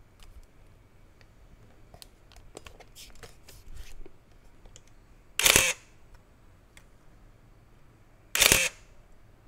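Canon EOS 650 35 mm SLR firing its shutter twice, about three seconds apart. Each release is a short mechanical clack of mirror and shutter, with the built-in motor winding the film on. Light clicks and taps from handling the camera come before the first release.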